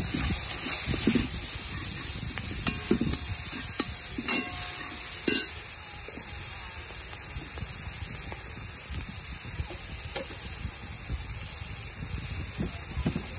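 Chopped onions, tomatoes and peppers sizzling steadily in hot oil in an iron pot. A metal spoon knocks and scrapes against the pot a few times in the first half.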